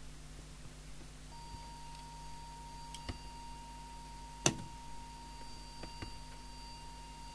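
Steady test tone from a small tuner-metronome's speaker, starting about a second in, fed into a CB radio's hand microphone to set the transmitter's FM deviation. A few clicks of the microphone being handled against it, one sharp knock about halfway.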